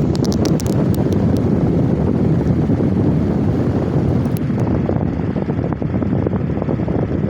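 Electric fan blowing air onto the microphone: a steady, loud low rumble of wind noise that eases off near the end.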